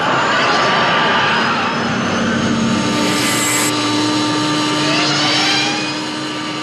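A car racing past with a sudden rushing whoosh that falls away over about two seconds, followed by rising engine-like whines, over steady droning tones.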